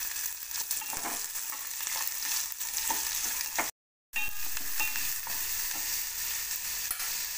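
Chopped onion sizzling in hot oil with mustard seeds, cumin, garlic and curry leaves in a stainless steel pot, stirred with a wooden spatula that scrapes lightly against the pan. The sound breaks off for a moment about halfway through.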